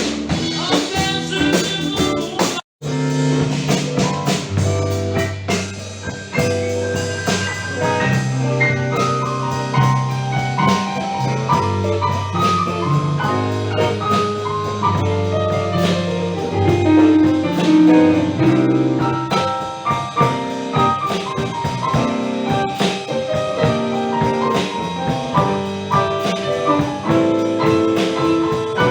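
A live band playing, with drums and low held bass notes. The sound drops out for an instant about three seconds in, where one excerpt cuts to the next.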